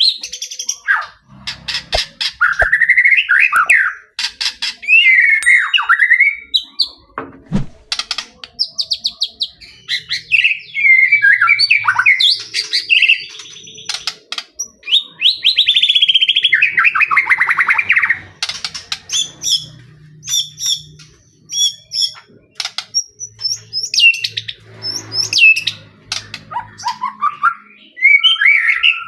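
White-rumped shama (murai batu) singing a loud, continuous, varied song of gliding whistles, rapid clicking trills and sharp high notes, with short pauses between phrases.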